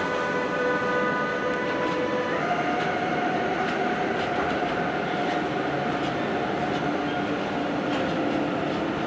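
Freight train of empty flat wagons rolling past, a continuous rumble of steel wheels on rail. Through it runs a steady whining tone, which changes pitch about two seconds in.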